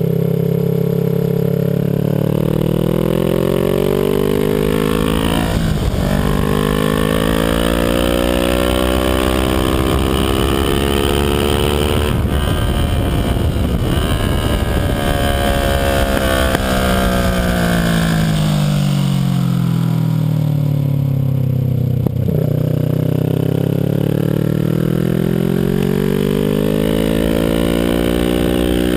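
Kawasaki Ninja 650R's parallel-twin engine at track speed. It climbs in pitch with a short shift break about six seconds in, falls away for several seconds through the middle as the bike slows for a turn, then climbs again over the last several seconds.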